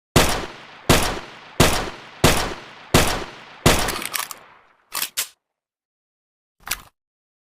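Makeshift M1911 pistol sound effect: six gunshot-like bangs fired steadily about 0.7 s apart, each trailing off in an echo, then a few short mechanical clicks.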